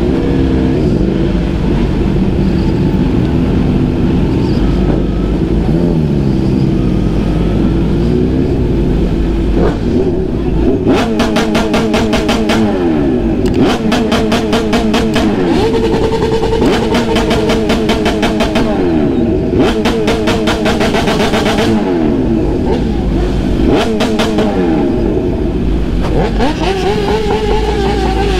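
Supercharged inline-four of a 2020 Kawasaki Z H2 with an SC-Project CRT exhaust, running at low speed. From about ten seconds in it is revved hard in about six bursts of one to two seconds, each a rapid stuttering rattle of pops as the engine is held against its launch-control rev limiter.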